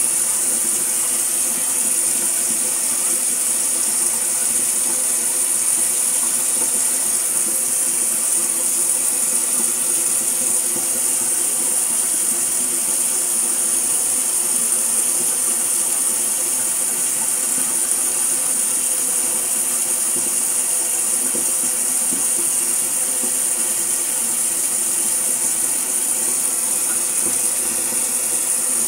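Shower running: a steady hiss of spraying water.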